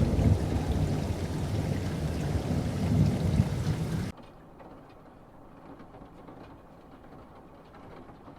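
Steady rain with a low rumble of thunder, cutting off abruptly about four seconds in and leaving only a faint hiss.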